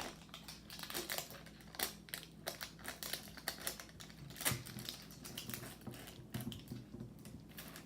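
Irregular light clicks and taps of small plastic toy pieces and packaging being handled.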